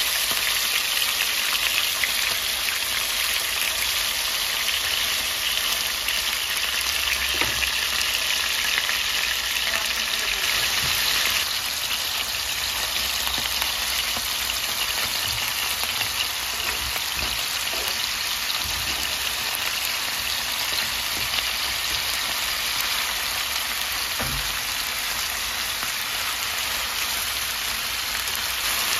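Chicken thighs sizzling steadily as they fry in oil in a nonstick pan, the hiss easing a little about eleven seconds in. A few light knocks of metal tongs against the pan.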